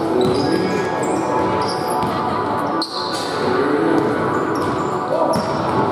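Basketballs bouncing on a hardwood gym floor, several at once at an uneven rhythm, with voices mixed in.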